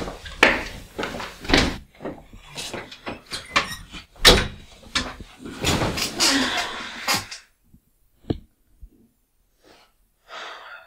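A rapid series of knocks and clattering handling sounds, like a door and objects being moved, for about seven seconds, then a few isolated clicks and a short rustle near the end.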